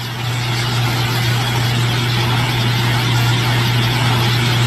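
Loud, steady low hum under a thick hiss, slowly getting louder.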